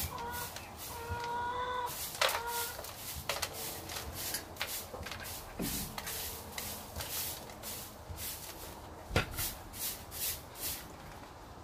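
Straw broom sweeping across a dirt-and-wood-chip floor: a run of short scratchy swishes, one or two a second. A thin high whine sounds twice in the first two seconds.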